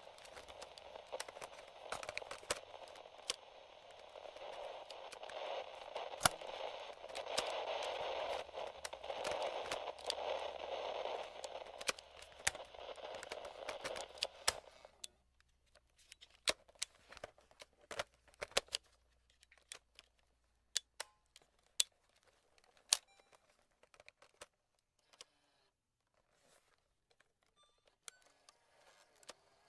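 Old transistor radio static: a steady hiss with frequent crackles and clicks, swelling for a few seconds, then cutting off suddenly about halfway. After that, only scattered small plastic clicks from the radio's tone slider and power switch being handled.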